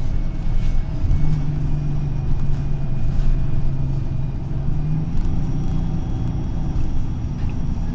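Passenger train running on the elevated line, heard from inside the carriage: a steady low rumble with a hum over it that fades about five seconds in.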